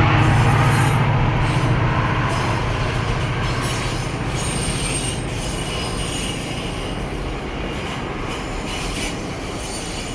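GO Transit double-decker commuter train passing on the rails. A heavy low rumble at the start fades within about two seconds, leaving the steady rolling noise of the coaches, which slowly gets quieter as the train goes by.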